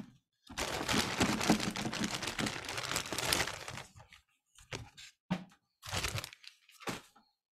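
Hands handling something that crinkles and crackles, dense and continuous for about three and a half seconds, then a few short separate rustles and knocks.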